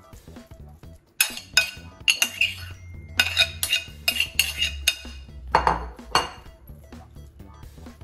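Metal spoon clinking and scraping against a ceramic bowl, a quick run of sharp knocks as thick mushroom duxelles is scraped out of the bowl. The knocks start about a second in and stop about two seconds before the end.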